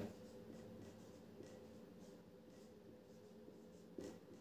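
Faint strokes of a marker pen writing on a whiteboard, with a short knock near the end, over a faint steady hum.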